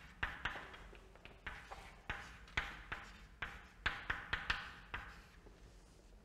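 Chalk writing on a chalkboard: irregular taps and short scratchy strokes, about two a second, stopping about five seconds in.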